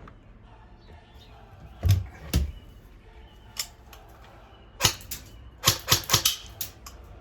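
Sharp mechanical clicks and knocks from a Real Sword Type 56-2 airsoft AK being worked: two heavier knocks about two seconds in, a single click, then a quick run of clacks around five to six seconds in.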